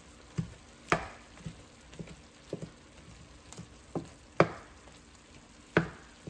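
Wooden spatula stirring and turning ground beef, carrots and spinach in a nonstick frying pan: irregular knocks and scrapes against the pan, roughly two a second, a few of them much louder, over a faint sizzle from the pan.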